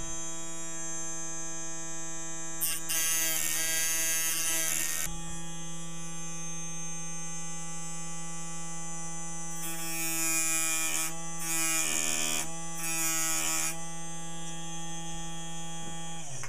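Small hand-held rotary tool with a tiny abrasive grinding wheel running with a steady whine, cutting tooth spaces into a brass clock wheel. Four spells of harsher grinding noise come as the wheel bites into the brass, the first about three seconds in. The motor runs down and stops near the end.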